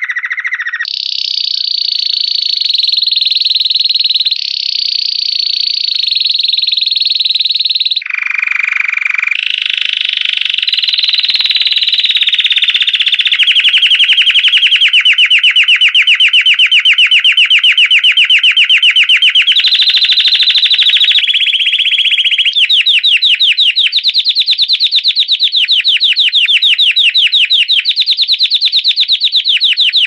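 Belgian canary singing its 'campainha' (bell) song: one unbroken run of phrases that jump to a new pitch every few seconds, turning partway through into long rapid trills of evenly repeated notes.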